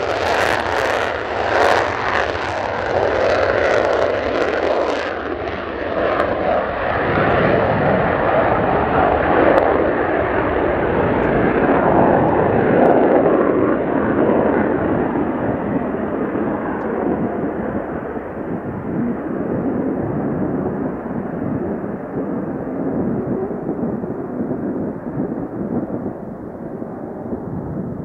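Mitsubishi F-2 fighter's single F110 jet engine at full afterburner on a touch-and-go take-off, a loud roar with crackle at first. It peaks about halfway through, then fades and grows duller as the jet climbs away.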